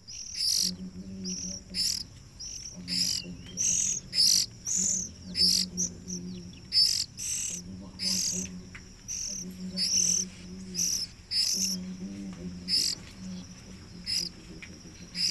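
Nestling songbirds, young oriental magpie-robins and bar-winged prinias, giving short, sharp, high-pitched begging chirps in quick succession, about one or two a second, as they are hand-fed. A low hum runs underneath.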